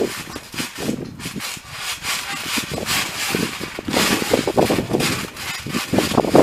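Kids jumping barefoot on a trampoline mat covered with wet Orbeez water beads: an irregular run of thumps from the bouncing mat, with the beads splashing up.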